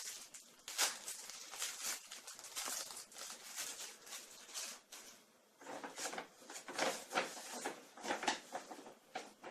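Foam squishy toy being squeezed and handled close to the microphone: a run of irregular scratchy rustles, with a quieter pause about five seconds in.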